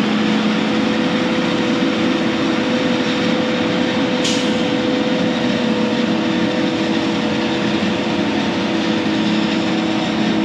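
Heavy diesel machinery running steadily: an even engine drone with a steady humming whine. A short click about four seconds in.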